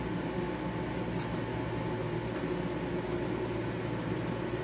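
Steady mechanical hum with hiss, like a room fan or air-conditioning unit, with a couple of faint ticks about a second in.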